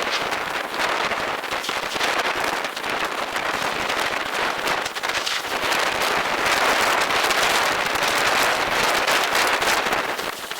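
Heavy rain falling during a thunderstorm: a steady dense hiss of drops with fine crackling hits.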